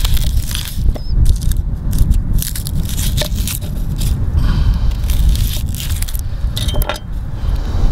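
Kitchen knife cutting and peeling a raw onion on a wooden cutting board: a string of crisp crackles and crunches from the dry skin and the cuts, over a steady low rumble.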